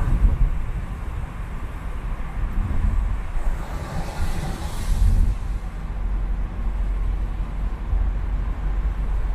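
Traffic on a wet city road: a steady low rumble of vehicles, with a swell of hiss from about three and a half to five and a half seconds in.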